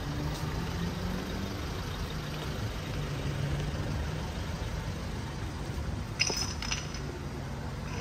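Steady low hum of road traffic, with a short metallic jingle about six seconds in.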